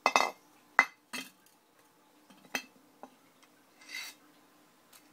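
A steel straight-pipe high-flow catalytic converter for a Honda Civic EG being handled and turned over on a tile floor: about half a dozen sharp metal clinks and knocks from the pipe and its bolted flanges, then a short scrape near the end.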